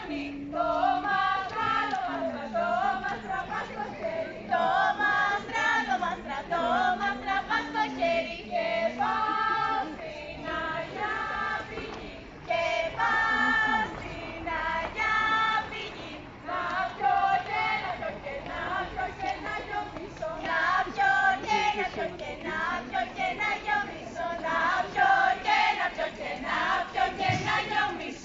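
A group of voices, women's most prominent, singing a Greek folk song in phrases.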